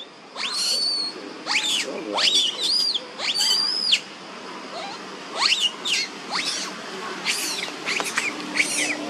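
Young macaque squealing in a rapid series of short, high calls, each rising and falling sharply, with a few longer arching squeals early on and a brief pause in the middle.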